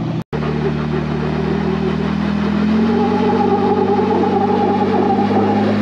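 Lifted Jeep Wrangler's engine running under load as it crawls up a rock ledge, the revs rising slightly about two and a half seconds in and holding there. The sound cuts out for an instant just after the start.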